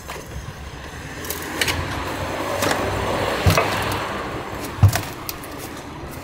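A Yamaha Ténéré 700 motorcycle being pushed by hand with its engine off: the tyres roll over hard ground, with several knocks, the loudest about three and a half and about five seconds in.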